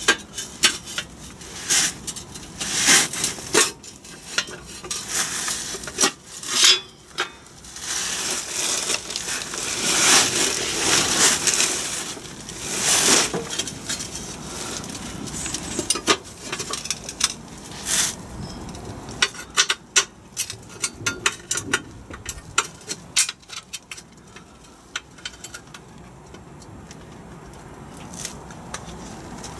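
Irregular metallic clinks, taps and scrapes as a thin plate is handled and fitted against the back of an engine block. The handling is busiest in the first half, then thins to scattered light taps.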